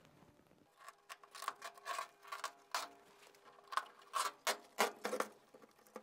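An old gasket being peeled and scraped off the sheet-metal mounting face of a gas furnace's collector box by a gloved hand. It is a run of irregular, short scraping and rubbing strokes that starts about a second in and stops shortly before the end.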